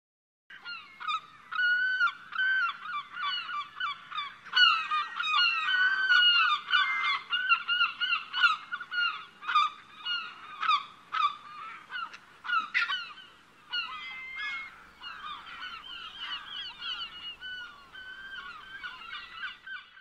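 A flock of birds calling, many short overlapping calls at once, from about half a second in; the calling grows softer after about two-thirds of the way through.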